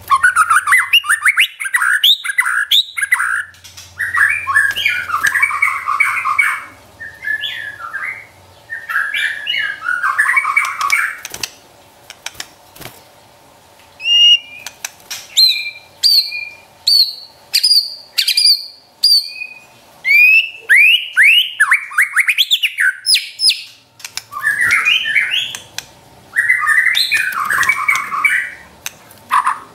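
White-rumped shama (murai batu) singing: runs of harsh, rapid chattering notes (the 'trotol') in the first ten seconds and again near the end, with clear whistled notes and quick upward-sweeping calls in between.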